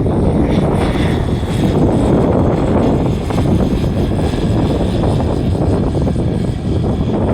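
Propeller engine of a light single-engine aircraft running steadily.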